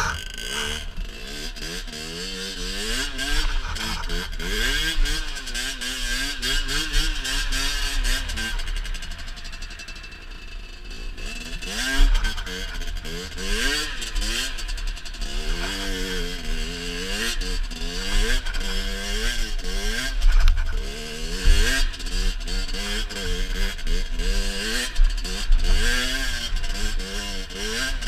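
2014 Rieju MRT SM supermoto engine being ridden, its revs climbing and dropping again and again through the gears, easing off briefly about ten seconds in.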